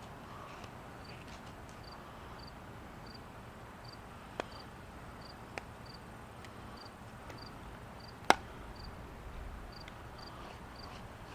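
An insect chirping steadily, a short high chirp about twice a second, with a few sharp clicks, the loudest about eight seconds in.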